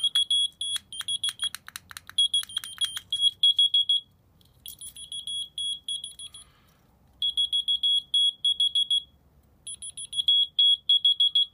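LED whistle-activated key finder keychain beeping. Its rapid, high, shrill beeps come in runs of one to two seconds with short gaps between them. Sharp clicks sound among the beeps in the first three seconds. No whistle sets it off.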